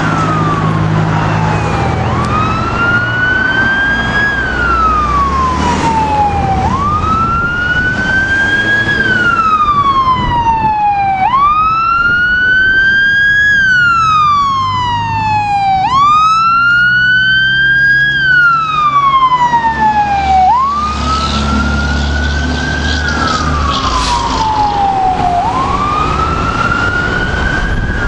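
Fire engine siren on a slow wail, each cycle rising for about two seconds and falling for about two and a half, repeating about six times, with a truck engine rumbling underneath.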